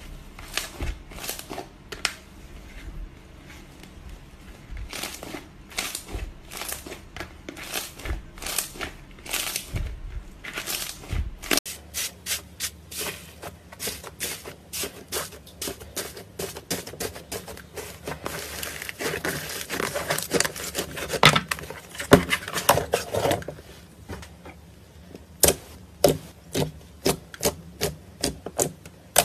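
Hands squeezing and kneading fluffy pink slime in a tub, with soft sticky clicks and squelches. About eleven seconds in it changes to rainbow iceberg slime, whose dried crust crackles as fingers press through it; near the end fingers poke glossy slime in a run of sharp pops, about two a second.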